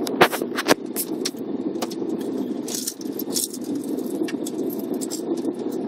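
Coach running slowly, heard from inside the passenger cabin: a steady low engine and road drone, with frequent sharp clicks and rattles, the loudest two within the first second.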